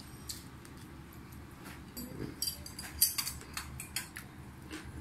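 Eating sounds: chewing and wet mouth clicks, with fingers working rice and curry on china plates. A run of sharp clicks falls in the middle, the loudest about three seconds in.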